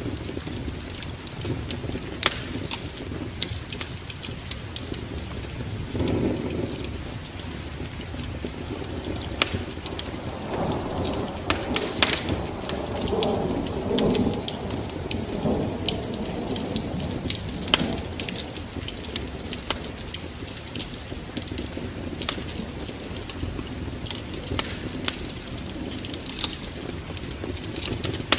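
Wood fire burning in a fireplace, crackling with frequent sharp pops over a low steady rumble. A softer swelling rush of flame comes through in the middle.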